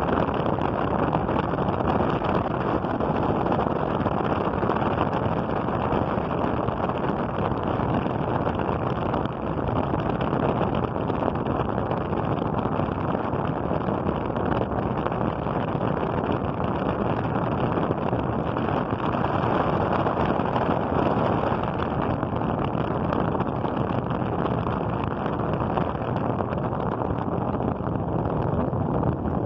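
Turbo electric fan running steadily at speed, an even rush of air with its blast hitting the microphone.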